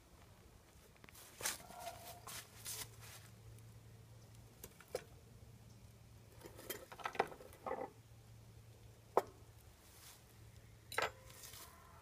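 Scattered light knocks and clinks of camp cookware and utensils being handled on a table, the sharpest click about nine seconds in and a ringing clink near the end.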